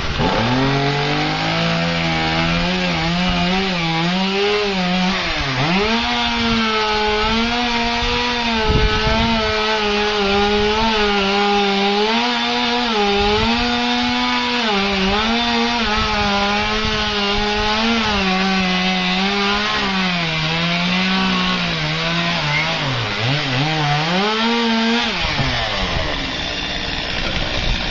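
Chainsaw running at high revs while cutting a tree, its pitch sagging and recovering as the chain loads up in the wood. Twice it drops deeply before picking back up, and it falls away near the end.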